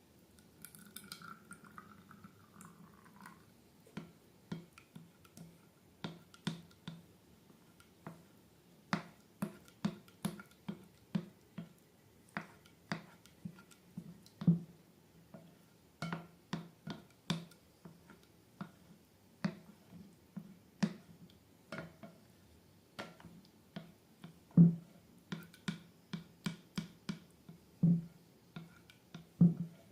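Slime being handled and squished: an irregular run of short wet clicks and small pops, often several a second, a few noticeably louder than the rest.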